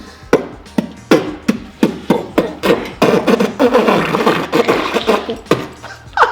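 A person imitating popcorn popping with his mouth: a string of irregular sharp pops and clicks. In the middle they come thicker and run together with voiced sputtering.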